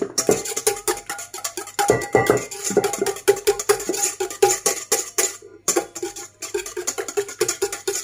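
Wire balloon whisk beating raw eggs in a stainless steel bowl: a rapid, rhythmic clatter of the wires striking the metal bowl, which rings faintly under each stroke.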